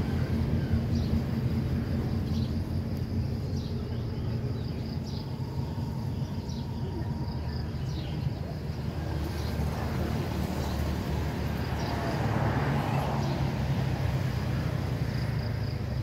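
Outdoor background sound: a steady low rumble, with faint short high chirps about once a second through the first half.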